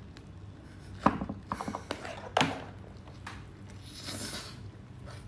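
Hard shell of a cooked lobster tail cracking as it is bitten and torn apart: a run of small crackles about a second in, one sharp crack a moment later, then a softer rustling near the end.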